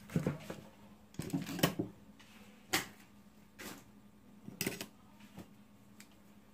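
Plastic surge protector and its packaging being handled and set down on a table: a handful of separate light knocks and clatters, with a short rustle about a second in.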